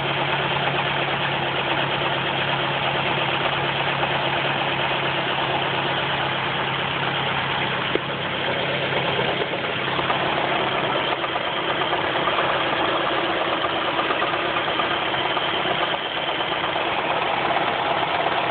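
Ford Focus engine idling steadily, with a single click about eight seconds in and a shift in its hum a little past halfway. The engine has an intermittent knock that comes and goes.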